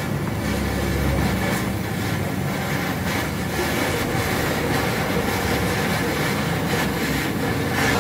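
Gas welding torch flame giving a steady rushing hiss as it welds a muffler into a car's exhaust pipe.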